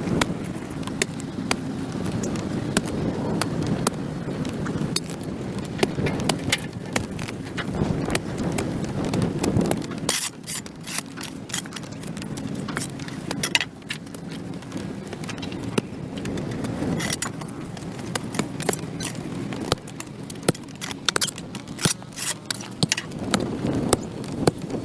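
A hand tool scraping dirt and grass off a concrete sidewalk: many short scrapes and clicks, densest in the second half, with a vehicle's low hum passing in the first ten seconds and again near the end.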